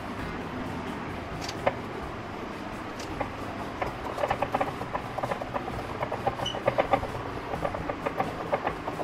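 Kitchen knife chopping garlic on a wooden cutting board: a quick run of sharp taps starting about three seconds in, over a steady background hum.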